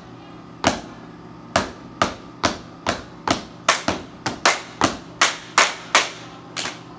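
Two cheerleaders' sharp hand claps, about sixteen in an uneven, syncopated cheer rhythm, each ringing briefly in a hard-walled hallway.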